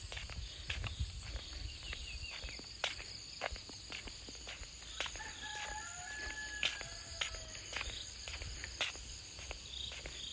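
A rooster crows once in the distance, about five seconds in, over a steady high-pitched drone of insects. Irregular sharp clicks and knocks are scattered throughout.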